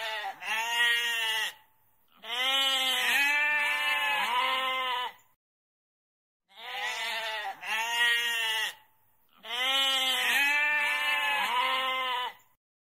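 Goat bleating in bouts: a pair of short bleats, then a long wavering bleat about three seconds long. After a short pause the same sequence comes again.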